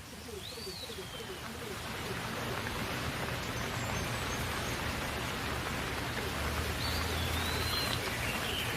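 Steady rain falling, its hiss swelling over the first couple of seconds and then holding, with a bird chirping briefly twice, once near the start and once near the end.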